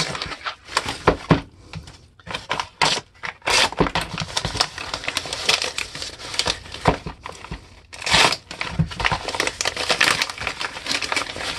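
A yellow padded paper envelope being folded, crumpled and pulled open by hand: irregular crinkling and crackling of paper, with a few sharper rips.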